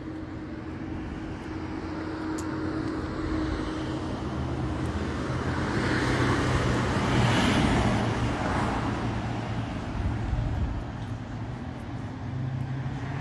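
Road traffic: a vehicle passes, its noise growing louder to a peak a little past halfway and then fading, over a steady low hum.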